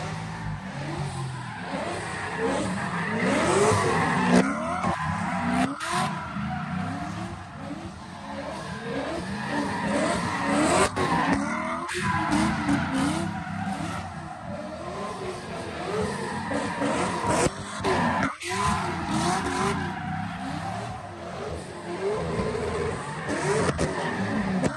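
Cars spinning donuts: engines revving hard in repeated rising sweeps over the screech of tyres skidding, with a few brief breaks.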